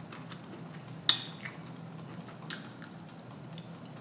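Close-up mouth sounds of a person biting and chewing fried shrimp, with sharp crunchy clicks about a second in and again about two and a half seconds in, over a faint steady hum.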